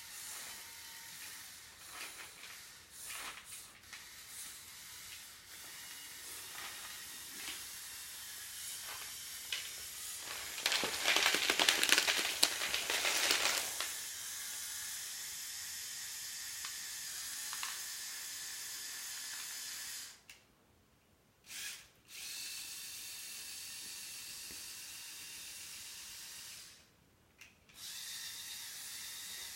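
A Lego Technic excavator model's mechanism running with a steady hiss and a faint whine. A louder rasping noise lasts about three seconds near the middle, and the sound cuts out briefly twice in the second half.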